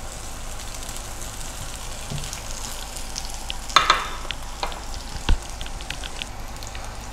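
Sliced shallots and garlic sizzling and crackling in hot oil in a wok as they are stirred with a silicone spatula. Two sharp knocks stand out, a little before four seconds in and again about five seconds in.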